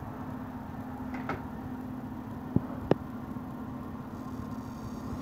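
A steady low hum of background noise with a few short, sharp clicks, the two loudest about two and a half and three seconds in.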